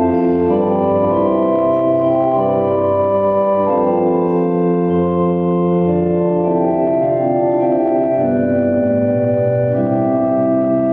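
Organ playing a slow hymn tune in sustained chords over a bass line, the chords changing about once a second.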